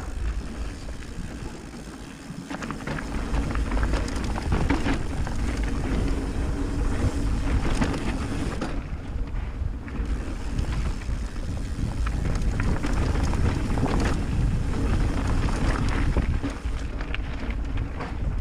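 Mountain bike riding along a trail: tyres rolling over a rough, stony surface, with the bike frame and drivetrain rattling over bumps and wind buffeting the microphone.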